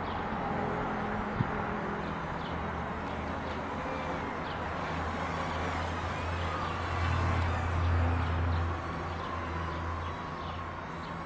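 Outdoor street ambience: the low rumble of a passing motor vehicle swells, loudest a little past the middle, over birds chirping and a faint wavering whine.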